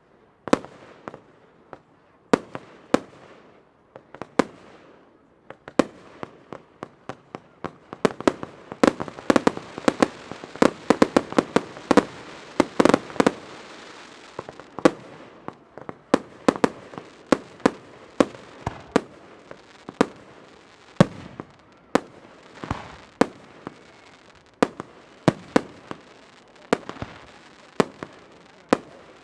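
Fireworks display: aerial shells bursting in sharp bangs. The bangs build into a dense barrage with crackling about a third of the way in, then thin out to single bangs every second or so.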